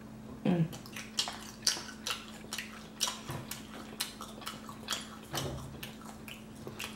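Close-miked eating sounds: irregular wet clicks and smacks, two or three a second, from chewing grilled shrimp and pulling shrimp off a wooden skewer with the fingers, over a steady low hum.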